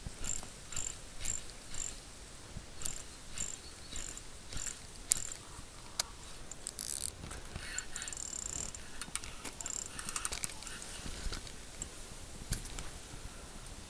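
Spinning reel being cranked on a lure retrieve, its gears ticking in a steady rhythm of about two turns a second. After about six seconds the cranking gives way to irregular rustling and clicks.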